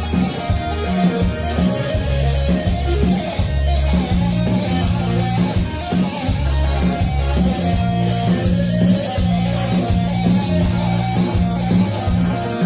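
Live band music with no singing: a plucked-string lead, the band's electric saz, plays a melody over a bass line and a steady drum beat.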